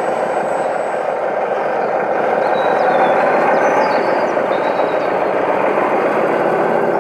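Radio-controlled model truck running, a steady, even mechanical noise with no breaks.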